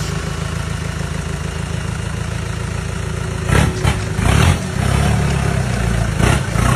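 Turbocharged engine of a lifted Daihatsu Taft 4x4 running at low revs with a steady low drone, broken by a few short loud bursts of noise, three in quick succession past the halfway mark and one more near the end.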